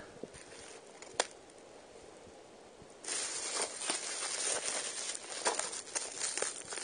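Packing tape being peeled and picked off bubble-wrap packaging. A single click about a second in, then from about three seconds in a steady crackly rustle with small snaps as the tape pulls away and the wrap crinkles.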